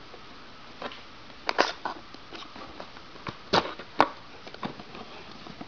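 Cardboard box lid being pulled open by hand: the tuck-in flap scraping and rustling free in a series of brief scrapes and clicks, the sharpest click about four seconds in.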